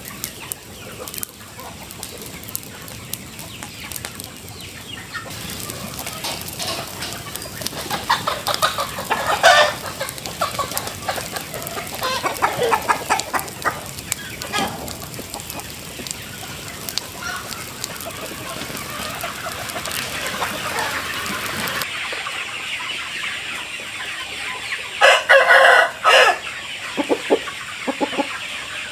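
Chickens clucking, with a rooster crowing loudly once near the end.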